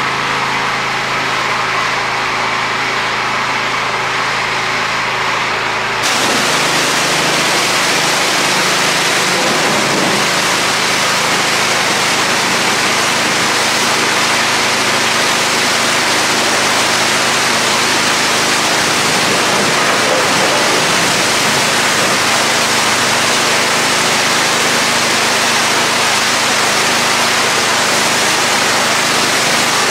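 Pressure washer running with a steady motor note. About six seconds in, the sound changes suddenly to a loud, even hiss of the high-pressure jet spraying the wet concrete floor, with the machine still running underneath.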